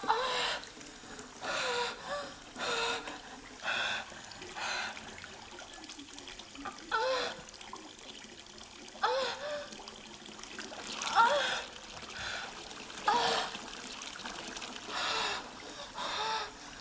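Bathwater splashing and trickling in short bursts every second or two as a person moves in a full bathtub, each with a brief rising gurgle.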